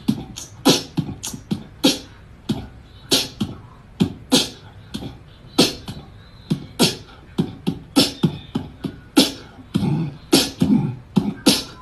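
Sparse percussive beat of sharp clicks and low thumps, a few hits a second in an uneven rhythm, like beatboxing.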